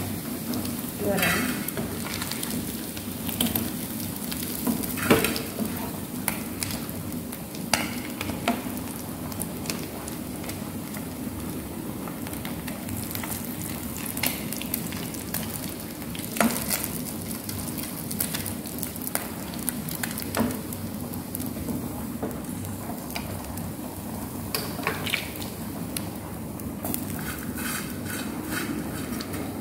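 Small fish deep-frying in hot oil in a metal pan, sizzling steadily, with a metal slotted skimmer scraping and knocking against the pan now and then.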